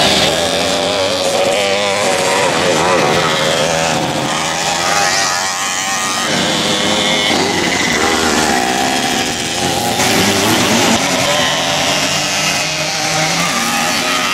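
Small Piaggio scooter engines buzzing and revving up and down as scooters ride a dirt track, with several engines heard at once.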